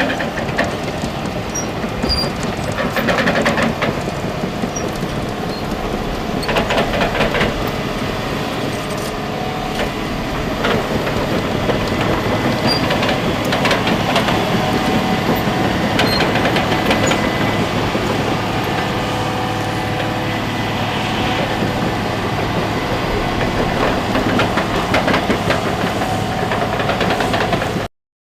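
Heavy forestry machine running steadily, its diesel engine droning under a scatter of metallic clanks and squeaks from the working machinery. The sound cuts off abruptly just before the end.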